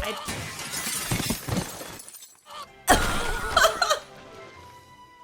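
Two loud, noisy crash sound effects from the anime's soundtrack: the first lasts about two seconds, and a shorter second one comes about three seconds in.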